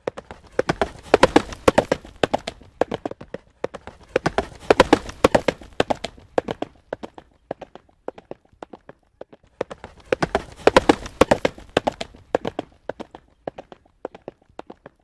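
Horse hooves galloping, a rapid run of sharp hoofbeats that swells and fades in three waves and thins out near the end.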